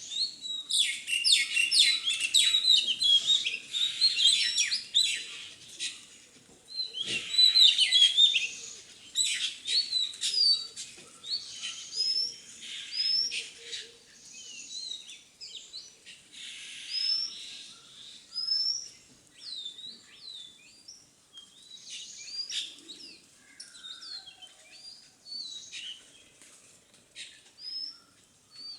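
Birds chirping and twittering, a dense chorus of quick, high calls for the first ten seconds or so, then thinning to scattered short whistled notes that sweep up or down in pitch.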